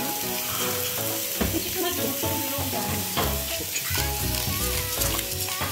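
Beef steaks sizzling steadily in a hot frying pan on a gas stove, with background music with a steady beat coming in about a second and a half in.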